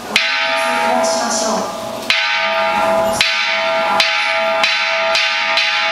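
Buddhist temple bell struck repeatedly during a service, about seven strikes with each ring carrying on into the next, the strikes coming closer and closer together.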